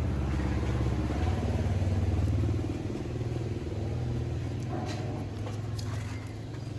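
An engine running steadily with a low hum, a little quieter after about two and a half seconds.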